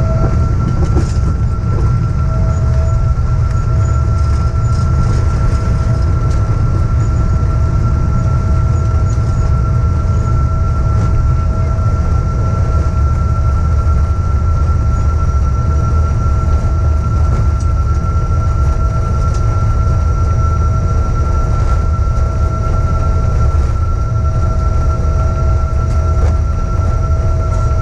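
Cabin noise of a Boeing 777-200ER rolling on the ground after landing: a loud, steady low rumble from the wheels and airframe, with a steady whine from the engines.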